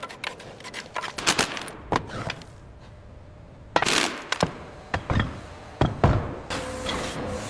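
A run of sharp knocks and thunks on encrusted metal, with a louder burst about four seconds in and two heavy thumps after it, as tools chip shells off a rusted steel frame seam.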